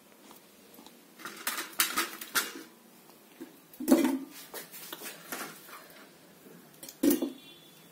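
Cut onion pieces dropped and handled into a stainless-steel mixer-grinder jar: a run of small clinks and knocks against the steel, with two louder knocks about four and seven seconds in.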